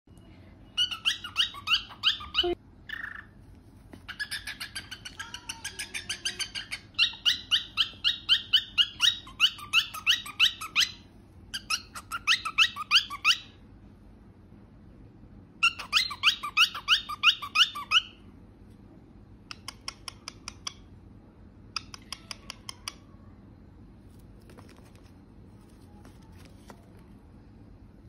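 Lutino cockatiel chirping in quick runs of sharply rising notes, several bursts of a few seconds each, then softer short bursts in the second half. A single knock about two and a half seconds in.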